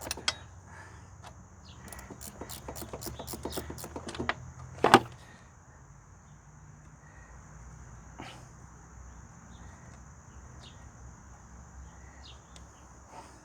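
A run of light metallic clicks and knocks from wrench work on a bolt, ending in a sharper knock about five seconds in, with one more knock a few seconds later. Under it is a steady high-pitched insect drone.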